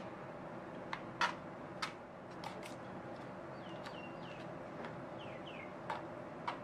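Light sharp clicks of a utensil tapping against a metal baking pan as brownie batter is combed into a pattern: a few in the first three seconds and two near the end, over a steady low room hum. A small bird gives two brief groups of short falling chirps in the middle.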